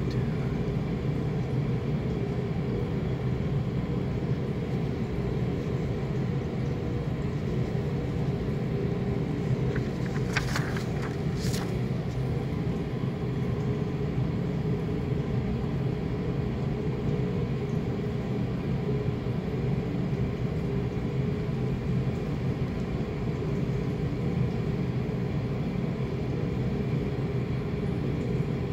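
Steady low mechanical hum and rumble, with a few short sharp clicks about ten to twelve seconds in.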